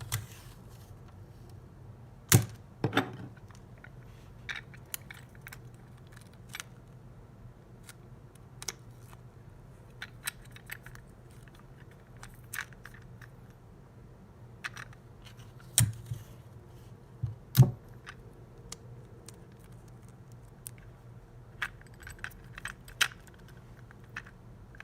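Irregular sharp clicks and clacks of a padlock's small metal and plastic parts being handled and fitted together during reassembly, with a few louder knocks among them.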